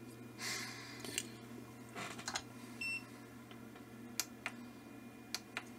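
Scattered light clicks and taps as a tool and a circuit board are handled on the bench, with a short high beep about three seconds in and a breath near the start, over a steady low hum.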